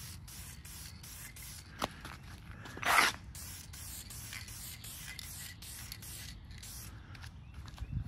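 Aerosol can of Dupli-Color vinyl and fabric coating spraying paint onto a vinyl boat seat, a steady hiss broken by brief gaps. There is a sharp click a little before two seconds in and a short, much louder burst of noise about three seconds in.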